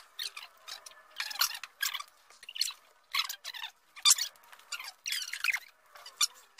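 Sped-up eating sounds: quick irregular crackles of taco shells and paper wrappers mixed with squeaky, chipmunk-like high voices, all thin with no low end.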